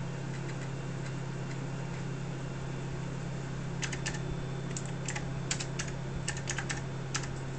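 Apple II keyboard being typed on: a quick run of about a dozen key clicks starting about halfway in, as a command is entered at the BASIC prompt. A steady low hum runs underneath.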